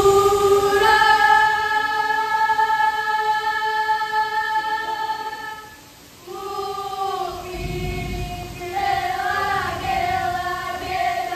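A group of girls singing the vocal chant of a Ratoh Jaroe seated dance in unison. They hold one long note, break off briefly about six seconds in, then carry on with a line that moves up and down in pitch.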